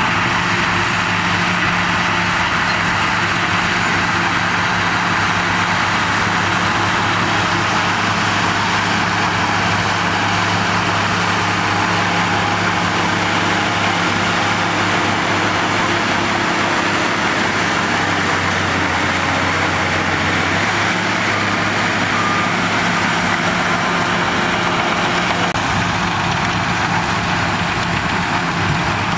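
Shantui DH17B2 bulldozer's diesel engine running steadily, a constant drone.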